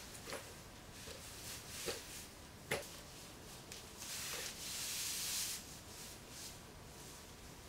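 Faint rubbing and rustling of clothing as a leather miniskirt is slid and hiked up by hand. There are a few light ticks and one sharper tap about three seconds in.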